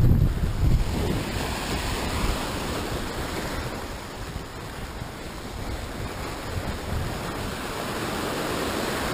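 Sea waves surging and breaking over rocks, a steady wash of surf. Wind buffets the microphone with a low rumble in the first second or so, then eases.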